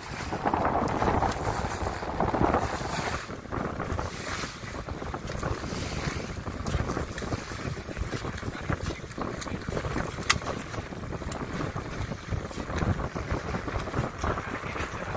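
Wind buffeting the microphone over choppy water splashing and washing around a boat.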